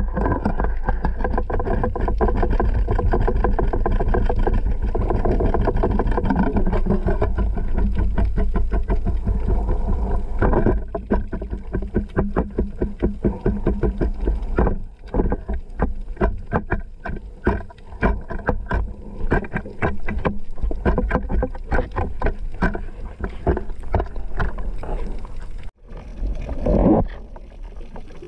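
Muffled underwater noise picked up by a camera in a waterproof housing: a steady low rumble with rapid, irregular clicking, the rumble thinning after about ten seconds, and a short louder whoosh near the end.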